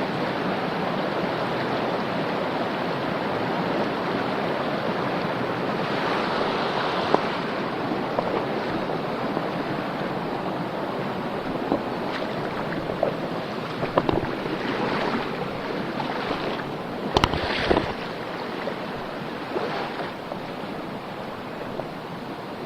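Mountain stream running steadily, with a few short knocks and clicks, the loudest a pair about seventeen seconds in.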